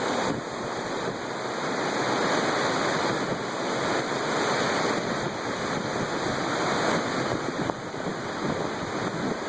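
Strong windstorm wind of about 65 mph blowing hard and steadily, gusting a little louder in the middle, rushing on the microphone.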